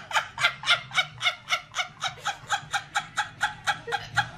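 A woman's high-pitched laugh in quick, even bursts, about three a second, with her hand over her mouth.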